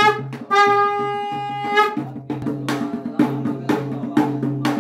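A conch shell blown on one steady note, with a short break in the first half second; the blast ends about two seconds in. Drums then beat a quick rhythm of sharp strokes.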